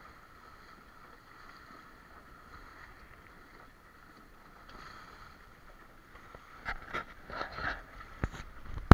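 Drascombe lugger's hull moving through choppy water under sail: a steady hiss of water, then from about six and a half seconds in, waves slapping the bow and spray splashing in loud, irregular hits.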